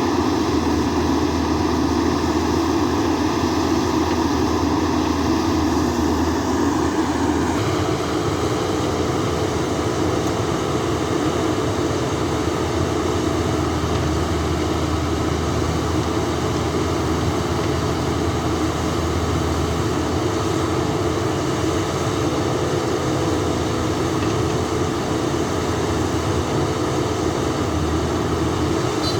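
JCB backhoe loader's diesel engine running steadily under work. About a quarter of the way in, its note eases slightly and holds there.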